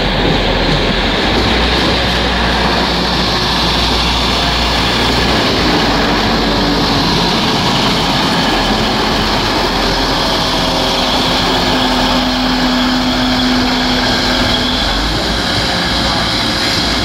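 Passenger multiple-unit train running along the platform, a loud, steady rumble of wheels and engine. A steady hum rises out of it for a few seconds in the second half.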